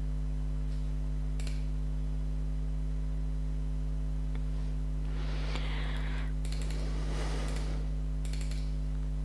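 Steady electrical mains hum, with a few clicks of a computer keyboard and mouse about a second in, and more clicks and rustling from about five seconds on.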